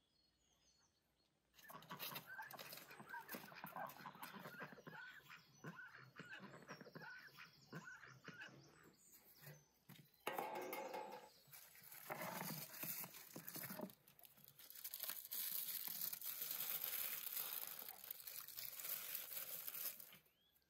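Hands working at a clay oven's metal tray: a scrape and clatter as the tray is hooked out, about ten seconds in, then aluminium foil crinkling for several seconds as the cover is peeled back.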